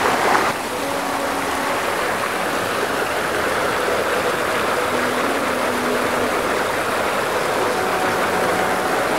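A mountain stream rushing over rocks in a small cascade, a steady rush of water.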